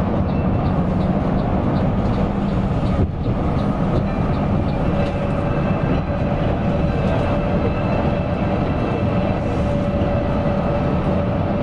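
Mercedes-Benz OC 500 RF 2542 coach running at speed, a steady engine drone and road rumble with a thin, steady whine. A faint, regular ticking, about three a second, sits over it in the first few seconds.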